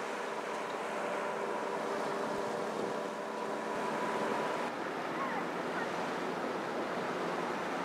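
Steady rushing noise of wind and river water, with a faint steady hum from the container ship's machinery that fades about halfway through.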